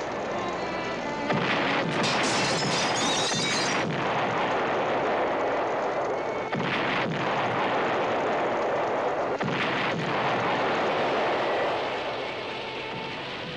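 Battle sound effects: several explosions and shots a few seconds apart over continuous noise, mixed with a music score. The din drops away near the end.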